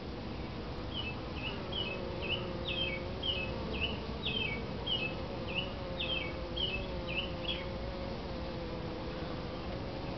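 Honeybees humming at the hive entrance, a steady, slightly wavering drone. From about a second in to about seven and a half seconds in, a bird repeats a short, high chirp about twice a second over the hum.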